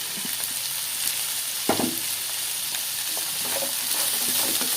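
Chopped onions sizzling in hot groundnut oil in a kadai, being stirred and sautéed, with small scraping clicks and one sharper knock on the pan about two seconds in.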